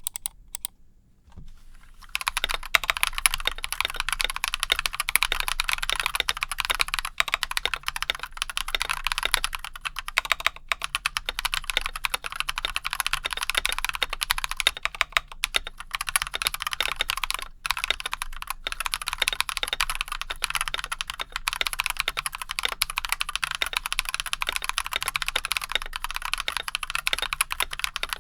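Stock, unmodified Akko x Monsgeek MG108 mechanical keyboard with Akko Cream Yellow linear switches, typed on continuously at a fast pace. The typing starts about two seconds in.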